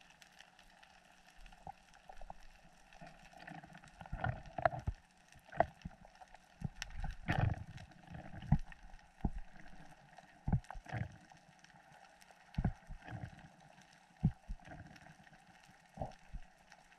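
Underwater sound heard through a camera's waterproof housing: a faint steady hiss broken by irregular muffled knocks and gurgles of moving water, busiest around four to eight seconds in.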